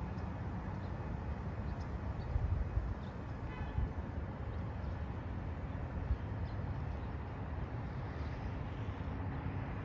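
Steady outdoor street ambience: a low rumble with a few faint bird chirps over it.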